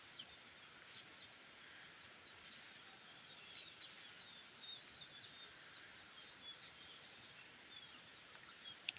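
Faint chirping of small birds over a quiet background hiss, with one sharp click near the end.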